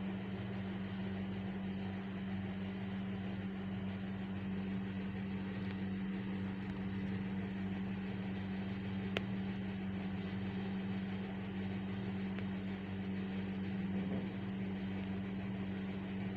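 A small motor humming steadily under an even hiss, with one sharp click about nine seconds in.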